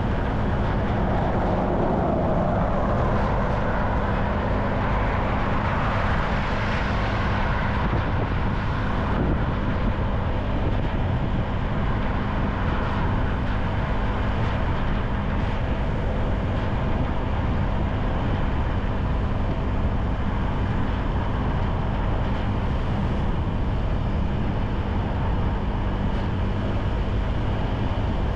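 A motorcycle riding through city traffic: steady engine and road noise with a heavy low rumble, likely wind on the microphone, and a swell of traffic noise in the first several seconds.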